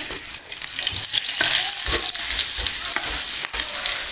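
Minced garlic sizzling in hot oil in a frying pan, fried until fragrant, while a wooden spatula stirs and scrapes it around the pan. The sizzle grows louder about a second in, with scattered short scrapes of the spatula.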